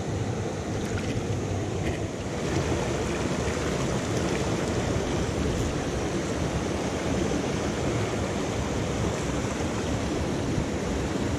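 Steady rushing of a small rocky moorland stream, water tumbling over stones and a little cascade, growing slightly brighter about two seconds in.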